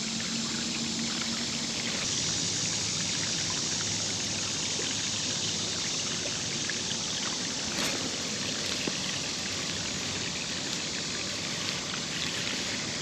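Shallow creek water rushing steadily.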